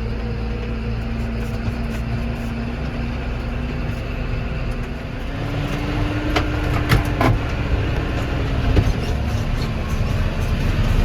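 John Deere 6190 tractor's diesel engine running with a low rumble, its pitch rising about halfway through as the engine speeds up, then easing back. A few sharp clanks sound near the middle.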